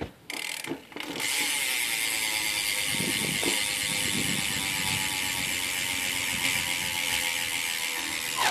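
Rear hub of a 2013 Mongoose Mode 720 BMX bike freewheeling as the wheel spins, its pawls ticking in a fast, steady, loud buzz that starts about a second in and cuts off suddenly near the end.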